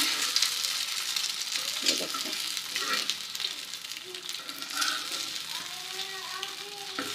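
An egg frying in a little ghee, sizzling steadily in the pan, with a few short scrapes of a spatula as it is worked loose from the bottom.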